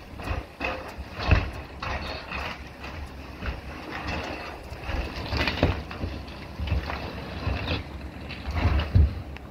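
An excavator's grab breaking up a fibreglass boat hull: a diesel engine running steadily under irregular cracks, crunches and thumps, the heaviest about a second in, halfway through and near the end.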